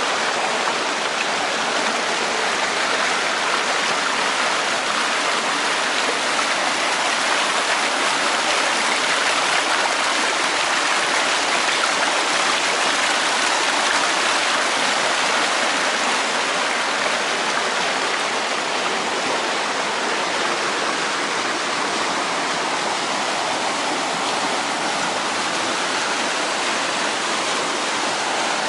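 Rushing river water: a steady, even roar of flowing water.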